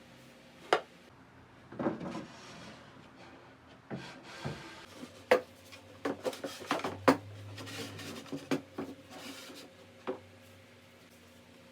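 Wooden parts being handled: a series of sharp knocks and clicks, bunched together in the middle, with light rubbing of wood on wood between them.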